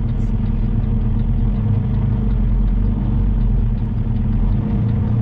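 Semi truck's diesel engine running steadily, heard from inside the cab as a constant low rumble.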